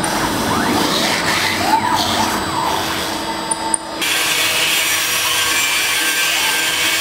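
CNC router spindle with a thin end mill carving wood, with steady cutting noise under whines that rise and fall in pitch. About four seconds in the sound changes abruptly to a steadier, hissier cutting noise.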